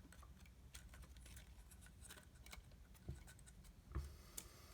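Near silence with scattered faint clicks and two soft taps, a little past three seconds and at about four seconds: small phone parts such as a metal plate being handled on a work surface.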